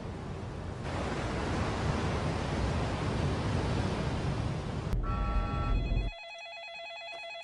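Steady rush of wind and sea for about five seconds. Then, after a click, a cordless phone rings electronically: a pulsing trill of several tones.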